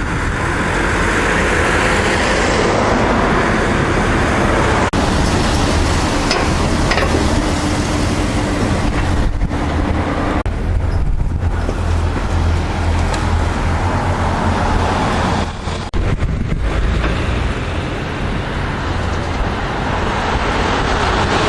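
Passenger train running past over a railway level crossing: loud, steady rumble and rail noise that builds up just before and holds throughout.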